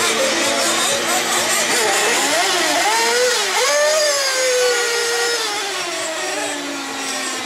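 Small nitro engine of a 1/8-scale RC buggy revving on the throttle, its high whine rising about two to three seconds in and falling away over the next couple of seconds.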